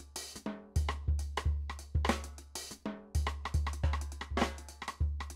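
Drum Tree sampled acoustic drum kit playing a pop jazz groove: a deep booming kick, snare, hi-hat and cymbals in a steady beat.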